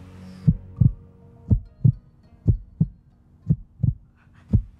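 Heartbeat sound effect: slow, steady pairs of low thumps, one pair about every second.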